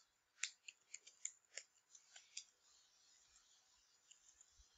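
Faint computer keyboard keystrokes: about ten quick clicks in the first half as a command is typed, then a few fainter ones near the end.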